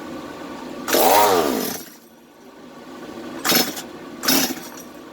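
Stihl MS 250 two-stroke chainsaw being pull-started: three pulls on the recoil starter rope, each a short whirr of the engine cranking over, the first longer with a rise and fall in pitch, the engine not catching. It has been choked and primed with starting fluid.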